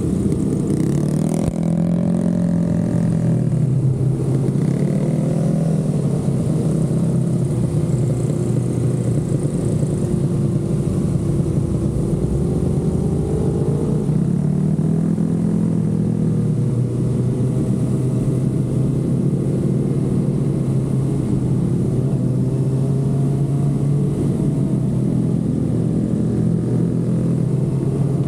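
Kawasaki ZX-6R inline-four sport-bike engine running under way, its note rising and falling several times with the throttle.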